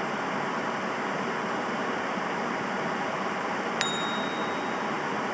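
Steady rushing noise with a single short, bright metallic ding a little under four seconds in.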